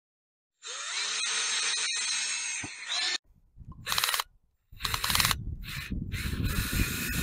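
Cordless drill boring a tap hole into a maple trunk. It starts about half a second in and runs steadily for about two and a half seconds, then comes in several short bursts, then runs on again near the end.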